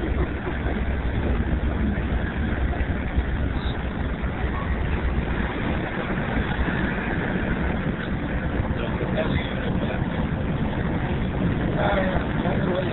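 Steady low rumble of a motorcoach driving along the highway, its engine and road noise heard from inside the passenger cabin.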